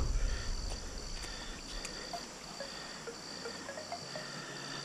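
Insects, likely crickets, chirping: a steady high-pitched trill in short regular pulses, with a few faint clicks.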